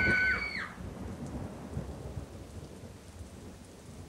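Steady rain with a low rumble of thunder. A high held tone, several pitches at once, fades out in the first second.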